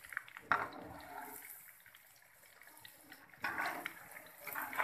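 Marinated chicken pieces deep-frying in hot oil in a metal kadai: a steady sizzle full of small crackles. It swells louder about half a second in and again around three and a half seconds, as a metal spoon turns the pieces in the oil.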